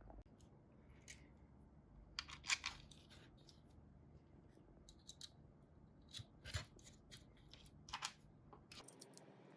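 Faint, scattered sharp clicks and short snips of small hand work, like cutting with scissors or snips and handling small parts, with the loudest cluster about two and a half seconds in.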